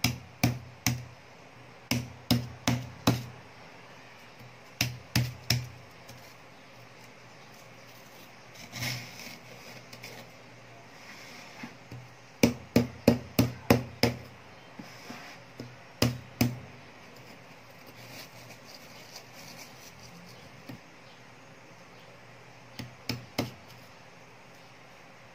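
Metal spoon tapping the crisp shell of a large baked meringue in short runs of quick, sharp taps, cracking it open, with softer crunching of the broken shell between the runs.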